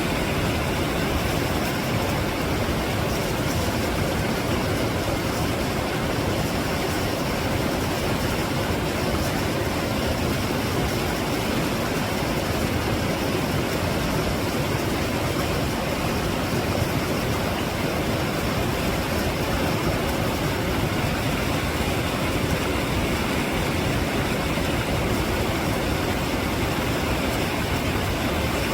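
Mountain valley stream flowing over rocks, a steady, unbroken rush of water.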